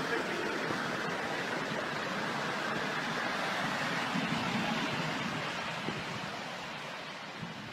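Steady rushing noise of wind and surf on an open beach, easing slightly near the end.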